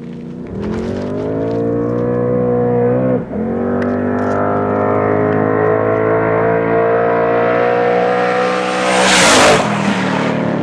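Two Procharger-supercharged 6.0-litre V8 cars, a Mustang and a Camaro, at full throttle in a roll race, engine pitch climbing with one upshift about three seconds in. Near the end the cars pass close by with a loud rush, and the engine pitch drops as they go away.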